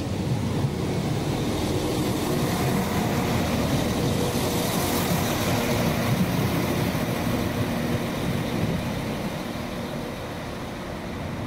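A train running past at close range, a loud rush with a low engine hum that holds for several seconds and then fades away near the end.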